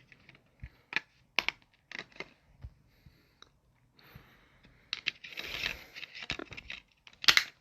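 Plastic DVD cases being handled, with scattered sharp clicks and taps, a scraping rustle about five seconds in, and a cluster of loud clicks near the end.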